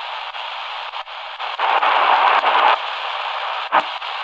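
Shortwave static hissing from the XHDATA D-328 portable radio's small speaker, tuned between stations, with scattered clicks. A louder rush of noise comes about two seconds in, and a sharp crackle near the end.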